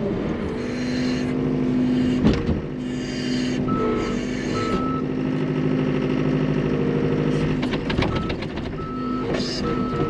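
Skid steer's diesel engine running steadily, its backup alarm beeping in short repeated beeps while it reverses, first around four seconds in and again near the end.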